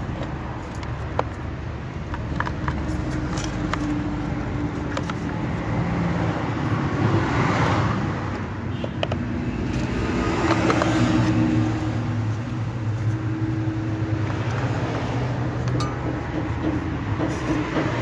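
Road traffic going by: a steady engine hum with two vehicles swelling up and fading away, about halfway through and again a few seconds later. Faint clicks and knocks from a washing machine's spin motor being handled and seated in its mount.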